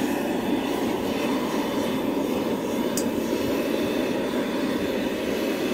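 A 100,000 BTU propane wok burner running on high under an empty wok, a steady rushing noise.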